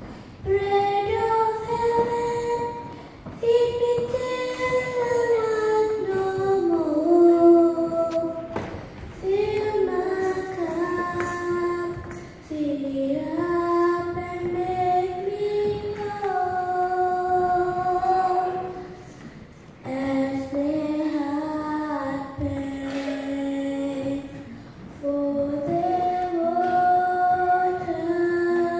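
A young girl singing a slow worship song solo into a microphone, in phrases of a few seconds with long held notes and short breaks between them.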